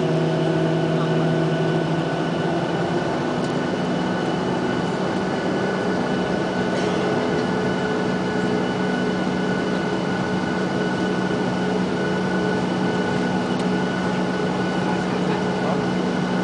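Boeing 737-800's CFM56-7B turbofan engines at taxi power heard inside the cabin: a steady hum and whine of several fixed tones, stepping up slightly in pitch about three seconds in.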